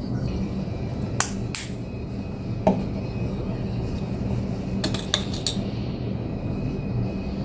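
A few light clicks and clinks, with a quick cluster of them about five seconds in, over a steady low hum.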